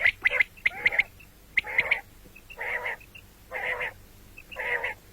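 Common quail calling: a quick run of short, sharp notes in the first two seconds, then three longer calls about a second apart.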